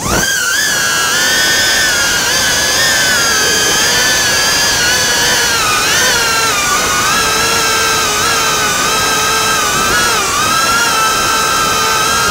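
Tokio-X racing quadcopter's brushless motors and propellers whining, heard through the onboard camera. The pitch wavers with throttle, dipping briefly about six seconds in and again near ten seconds, over a steady rush of air.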